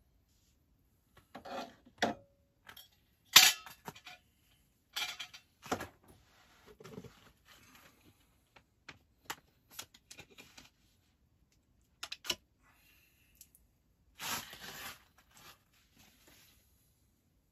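A stainless steel percolator coffee pot and a fork clinking and knocking at a camp stove in irregular, separate strikes, the sharpest about three seconds in, with short scrapes and one longer rustling scrape later on.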